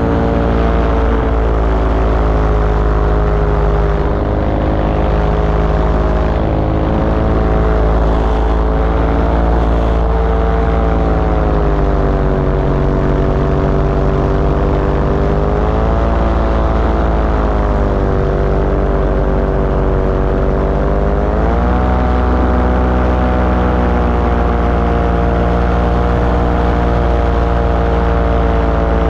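Small aircraft engine and propeller running steadily in flight, its drone stepping up in pitch about 16 seconds in and again about 21 seconds in as the throttle is raised.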